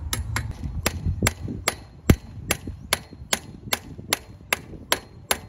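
Hammer blows driving a bearing into a new BMX frame: steady, sharp metal strikes about two and a half a second, with one harder blow about two seconds in.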